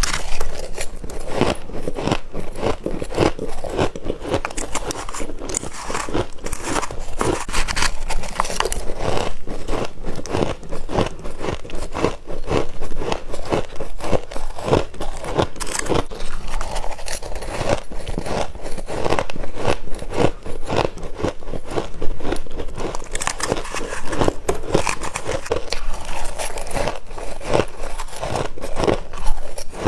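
Freezer frost being bitten and chewed: an unbroken run of fast, irregular crunches and crackles.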